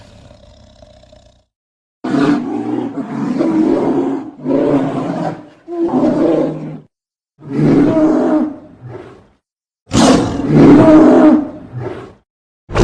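Animated giant red panda's roars as film sound effects: about five separate loud roars, each one to two seconds long, separated by brief silences, starting about two seconds in.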